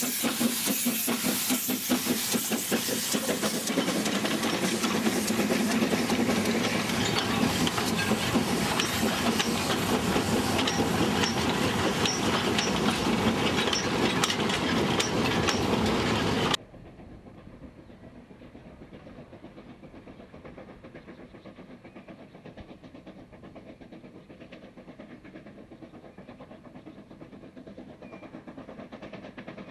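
Chinese C2 class 0-8-0 narrow-gauge steam locomotive passing close by, chuffing rapidly with a loud steam hiss from its cylinders, then loaded coal wagons rolling past with regular clicks of the wheels. About halfway through the sound cuts suddenly to a much quieter, distant steam locomotive.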